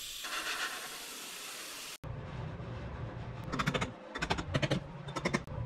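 Metal hand tools scraping and cutting into packed moulding sand. First a steady gritty scraping hiss, then, after an abrupt cut, several short bursts of scraping over a low hum.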